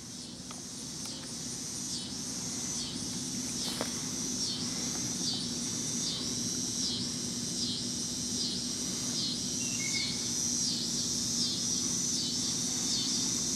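Chorus of insects shrilling in high, even pulses that swell and fade about once every two-thirds of a second, fading in over the first couple of seconds, with a steady low hum underneath.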